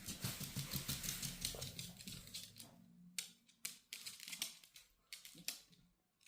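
Sleeping chihuahua snoring: a fast, rattling flutter of clicks for about two and a half seconds, then a few separate clicks.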